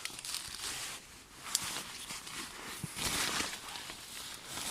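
Irregular rustling and crunching, like someone moving about or handling things, with a sharp click about a second and a half in.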